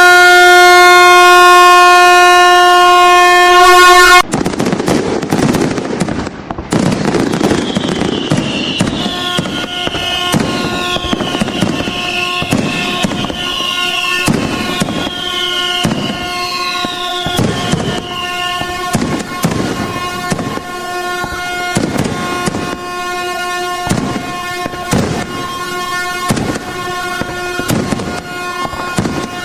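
A loud, steady air horn tone held for about four seconds, cut off abruptly, then a fireworks barrage of repeated bangs and crackles. Falling whistles sound from about eight to eighteen seconds in, and the horn tone sounds faintly beneath the bangs from about nine seconds on.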